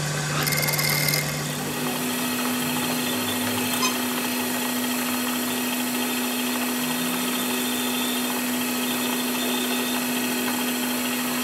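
Metal lathe running with its tool bit turning down a steel brake caliper pin, a worn undersize pin being brought back to size. A steady machine hum under cutting noise; the hum steps up to a higher pitch about two seconds in and then holds steady.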